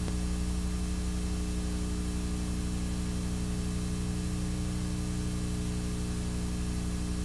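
Steady low electrical hum with a buzz of overtones, under a layer of static hiss, like the noise of an old analog video tape.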